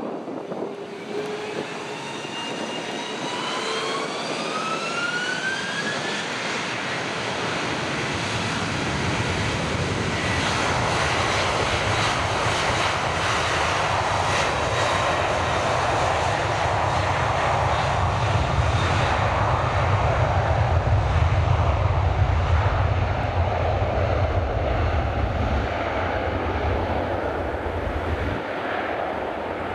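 Airbus A330-200's twin jet engines spooling up to takeoff thrust: a rising whine over the first several seconds, then a steadily building roar with a deep rumble as the airliner accelerates down the runway, loudest about two-thirds of the way through.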